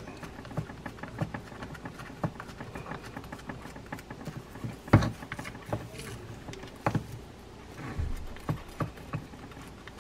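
Small scattered clicks and taps of a Daiwa Millionaire 4HM baitcasting reel's metal parts being handled as its side-plate screws are set by hand during reassembly, with a sharper click about five seconds in.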